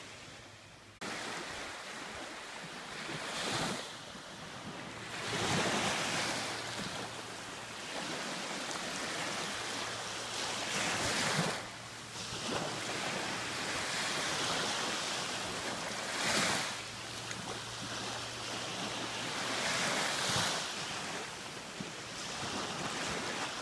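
Surf breaking on a beach: a steady wash of water with a louder wave crash every four to five seconds.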